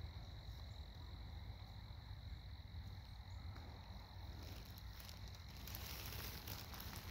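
Faint outdoor ambience: a steady high-pitched insect drone, with low wind rumble. From about five seconds in, a hissing rustle with small ticks grows louder.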